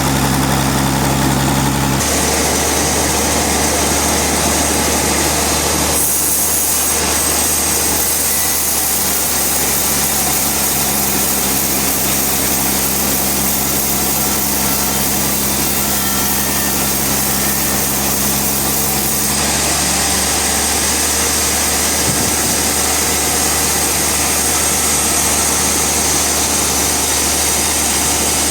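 Sawmill machinery running steadily, with its tone changing abruptly a few times.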